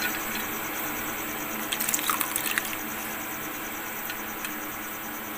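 Water dripping and lightly splashing as wet poha (flattened rice) is squeezed out by hand over a steel bowl of washing water, with a few small splashes about two seconds in.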